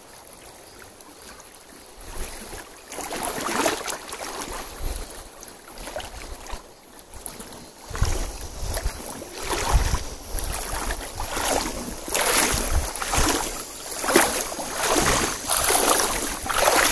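Shallow, fast-flowing creek water running over stones, with wind buffeting the microphone in uneven gusts that swell and fade, and a couple of deep low thumps in the middle.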